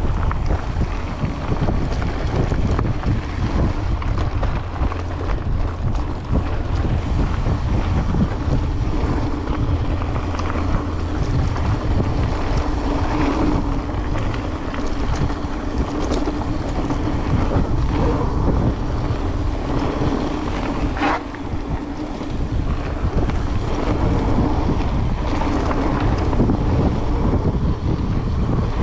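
Wind rushing over the microphone of a mountain bike rider's camera on a fast trail descent, with a constant low rumble and scattered short rattles and clicks from the bike rolling over rough ground.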